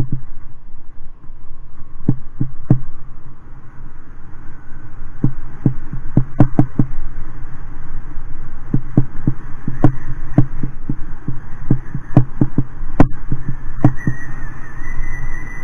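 Wind buffeting the microphone of a camera carried on a moving bike, a constant low rumble. Frequent sharp knocks and rattles come through as it rolls over the bumpy path. A thin steady whine comes in near the end.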